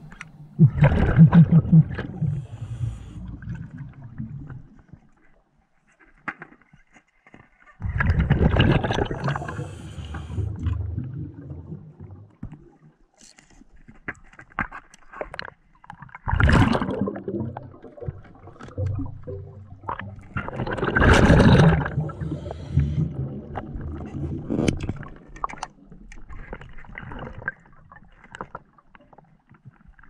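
Scuba diver breathing underwater through a regulator: four loud bursts of exhaled bubbles several seconds apart, with quieter clicks and hiss between them.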